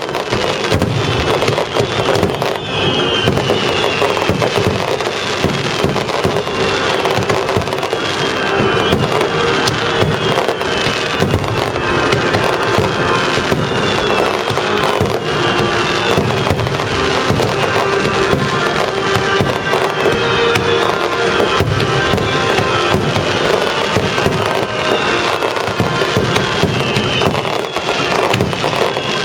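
Fireworks going off in a dense, continuous run of bursts and crackles over loud orchestral music from the show's loudspeakers.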